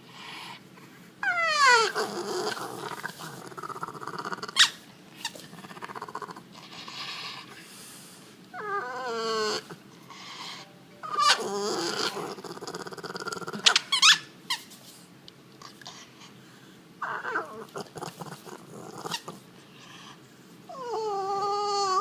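French bulldog making its odd vocal noises: about four wavering whines that drop sharply in pitch, the last one near the end levelling into a held whine. Noisy breathy sounds and a few short, sharp clicks come between the whines.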